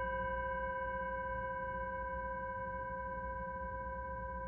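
Metal singing bowl ringing on after a felt-mallet strike, several steady overtones held together and slowly fading.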